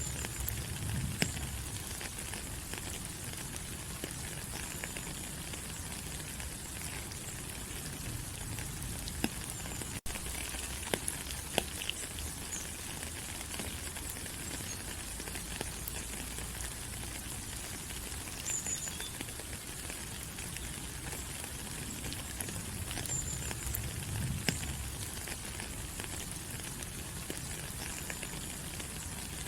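Steady tropical forest rain falling on leaves, an even hiss with scattered sharper drops, briefly cutting out about ten seconds in.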